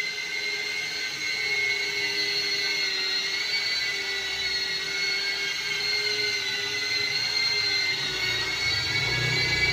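Small FPV cinewhoop drone's motors spinning five-blade ducted propellers: a steady high whine whose pitch wavers slightly with the throttle. A low rumble comes in near the end.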